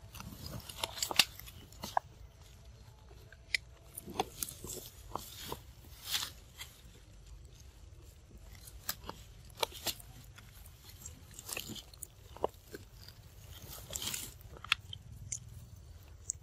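A macaque chewing and biting fresh leafy vine stems close by, with irregular crisp snaps and crunches as stems break, over a steady low rumble.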